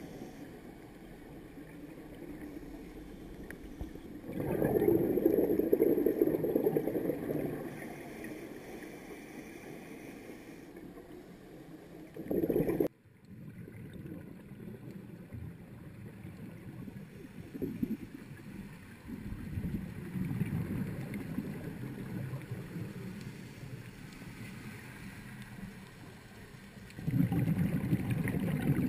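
Muffled underwater sound heard through a GoPro Hero2's waterproof housing: a low rumble with louder gurgling rushes of scuba divers' exhaled bubbles, the biggest about four to eight seconds in, a short one that cuts off sharply near thirteen seconds, and another near the end.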